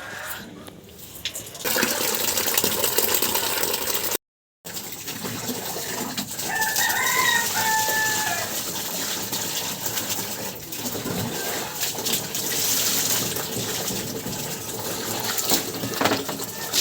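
Water running and splashing steadily, as when washing out chicken droppings trays. A rooster crows once in the middle, a call of about two seconds.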